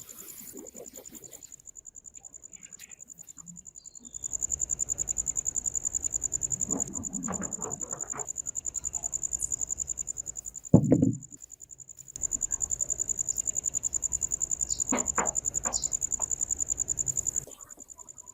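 A cricket trilling: one high, rapidly pulsing tone that runs for several seconds, breaks off for about a second and a half, then starts again. In the gap comes a single heavy thump, and there are a few light clicks of handling.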